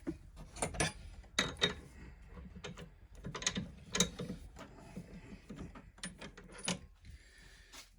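Irregular clicks, knocks and scraping of hand tools and a wooden bowl blank being handled at a woodturning lathe, with no motor running.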